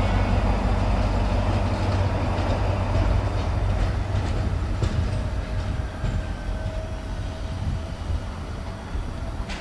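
SNCF BB 67000-series diesel locomotive moving off, its diesel engine's low drone fading steadily as it draws away, with a few clicks from the wheels on the track partway through.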